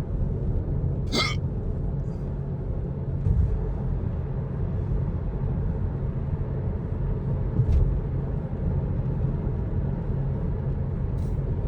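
A man's single sharp hiccup about a second in, over the steady low rumble of a car cabin on the move.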